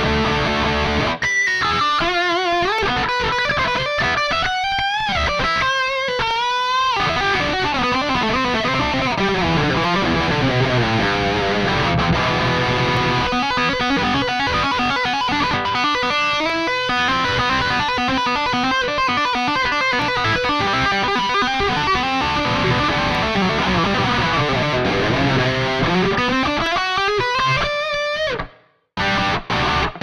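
Donner Hush X electric guitar played through the Mooer Prime P2's 'Brutal SLO100' preset, a high-gain Soldano SLO-100-style amp model with a noise gate: distorted lead playing with fast rising and falling runs in the first few seconds, then busier riffing. It stops abruptly near the end, cutting to near silence apart from a few short notes.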